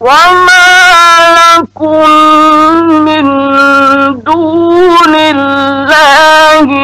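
A man reciting the Quran in a slow melodic chant: one voice holding long, drawn-out notes, breaking off briefly twice. It starts suddenly out of a pause.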